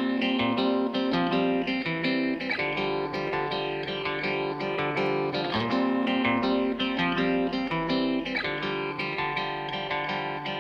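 Background music led by a plucked guitar, notes picked in a quick steady pattern.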